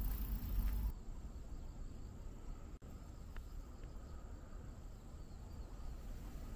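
Crickets chirping steadily in the grass. A low rumble of wind on the microphone fills about the first second and then stops abruptly.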